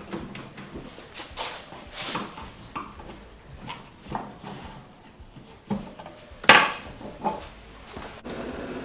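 Hand tools and metal parts clinking, knocking and scraping at an irregular pace while a snowmobile is taken apart, with the loudest knock a little past halfway. A steady hum starts abruptly near the end.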